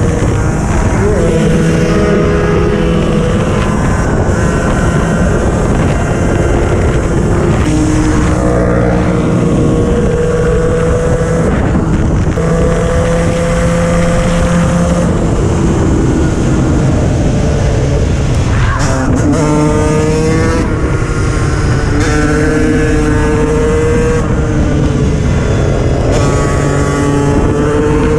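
KTM 125 EXC two-stroke enduro engine pulling hard under acceleration, its pitch climbing and then dropping several times as the rider shifts through the gears, over heavy wind rush on the helmet-mounted microphone.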